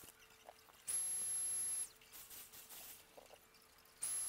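Short bursts of hissing air with a steady high whistle from a paint spray gun as its trigger is pulled, each lasting about a second: one about a second in, another starting near the end. A faint steady hum runs underneath.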